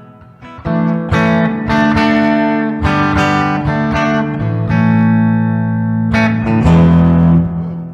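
Borg ME535 electric guitar played clean through a Kustom Quad 64 DFX amp: a run of chords, each struck and left ringing for a second or more, with a brief pause just before the first one.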